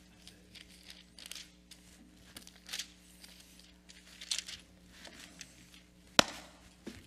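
Paper rustling and crinkling in a few short swishes as sheets are handled on a wooden lectern, then a single sharp tap or click about six seconds in, the loudest sound, over a steady low hum.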